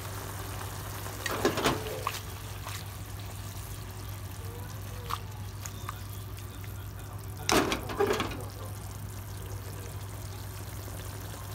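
Bamboo shoots and chicken simmering in broth in a pan, with a steady low hum underneath. Two short bursts of knocking and clatter stand out, one about a second and a half in and a louder one around eight seconds in.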